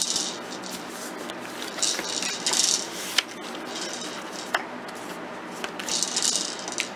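Paper rustling and sliding as a patterned paper liner is worked into an envelope and pressed flat, in several short rustles with a few light taps.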